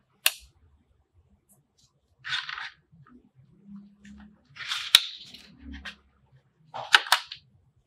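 Cardboard packaging inserts and a clear plastic tray being handled on a tabletop: a sharp click, then three short bursts of rustling and scraping, the last with a rattling double click near the end.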